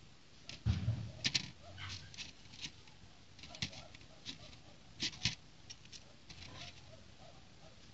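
Small plastic building bricks clicking and tapping as pieces are handled and pressed together, in scattered irregular clicks, with a dull low thump about a second in.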